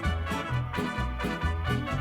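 Upbeat swing-style background music with brass and a bouncing bass line at about two notes a second.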